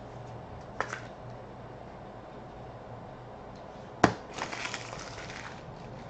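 Hands handling a trading card and a clear rigid plastic card holder on a desk. A light click comes about a second in. Just after four seconds there is a sharp knock, followed by about a second of crinkly plastic rustling.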